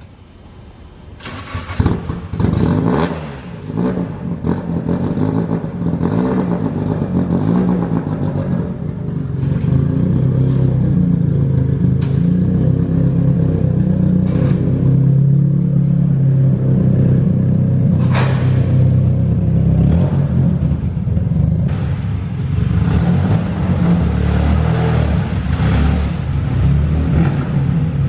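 Nissan 240SX's turbocharged SR20DET four-cylinder engine running as the car is driven, its note swelling and easing with the throttle; the engine has an exhaust leak at the turbo manifold gasket. It comes in loud about two seconds in, and a couple of sharp clicks stand out later.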